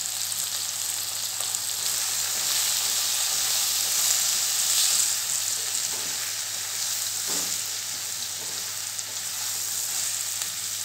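Brinjal and onion pieces sizzling in hot oil in a nonstick kadai as a spatula stir-fries them, mixing in freshly added spice powders. The sizzle is a steady hiss, a little louder around the middle.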